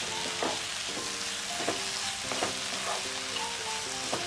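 Onion-tomato masala with spice powders sizzling in a nonstick kadai while a spatula stirs it. The spatula scrapes and knocks against the pan several times over the sizzle.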